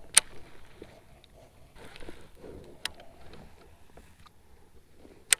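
Three sharp clicks as a baitcasting rod and reel are handled in a kayak: a loud one just after the start, a smaller one near three seconds, and another loud one just before the end.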